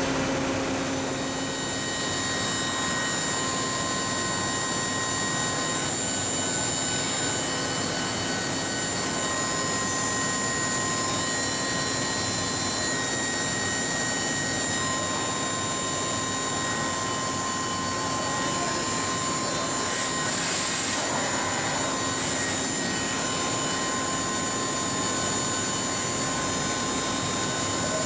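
Steady machinery hum of a powered-up Mitsubishi MH4050 CNC horizontal machining center, with several steady whining tones over it. A brief hiss comes about twenty seconds in.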